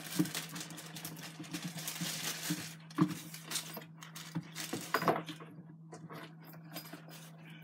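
Clear plastic packaging bag crinkling and rustling as a fabric dog treat pouch is pulled out of it and handled, with scattered light clicks and taps. The rustling is densest in the first few seconds and thins to occasional clicks later.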